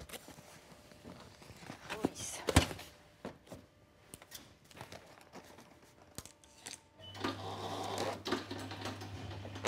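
Brown paper and cardboard handled with scattered knocks and one sharp knock about two and a half seconds in; about seven seconds in a Strapex parcel strapping machine starts up with a steady hum to strap the parcel.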